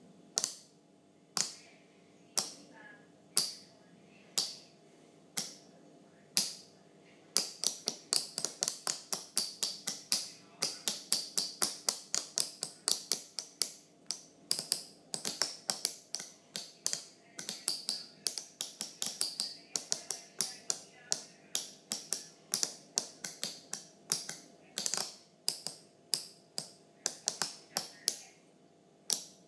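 A row of small push-pull solenoids clicking as their plungers are fired by an Arduino-driven MOSFET board. Single sharp clicks come about a second apart, then from about seven seconds in a fast, dense run of overlapping clicks, easing back to spaced clicks near the end.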